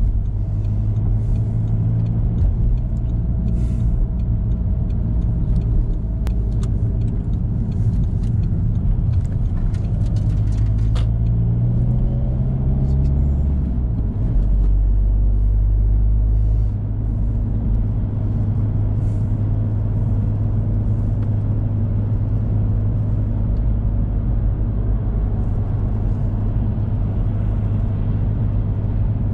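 A car's engine and road noise heard from inside the cabin while driving: a steady low drone whose pitch shifts for a few seconds about halfway through.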